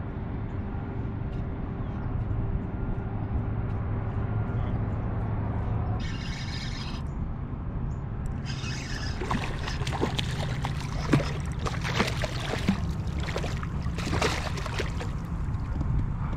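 Water sloshing and splashing around a kayak hull over a steady low rumble. The splashes come thick and irregular from about halfway in.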